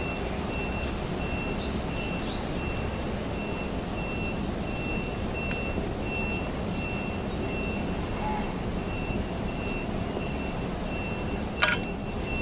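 A vehicle's reversing alarm beeping steadily, about two beeps a second, over a low steady rumble. There is one sharp click near the end.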